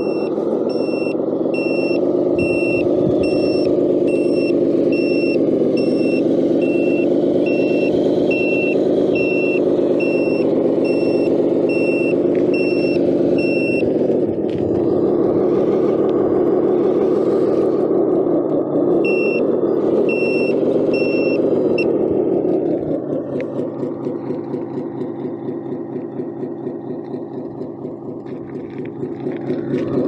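RC dump truck's sound unit playing a diesel engine note with a reversing alarm beeping about twice a second as the truck backs up. The beeping pauses midway, returns briefly, then stops, and the engine note drops to a quieter idle for the last several seconds.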